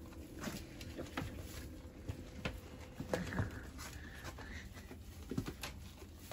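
Goats feeding on hay in a plastic basket: soft rustling of the hay with scattered small clicks and knocks.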